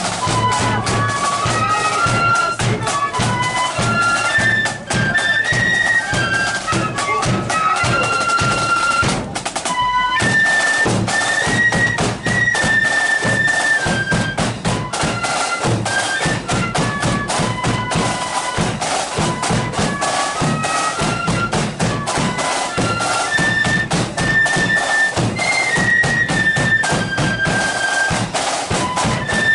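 Marching flute band playing a tune: many flutes in unison carry the melody over the beat of the band's drums, including a bass drum. The melody breaks off briefly about ten seconds in, then resumes.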